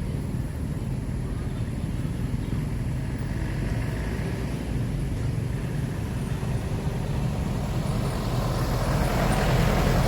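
Steady low rumble of a motor vehicle engine running, with a passing vehicle swelling louder about eight to nine seconds in.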